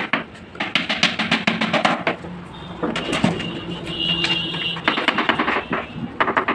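Background music with a fast percussion beat that drops out for a couple of seconds in the middle, where held notes carry on.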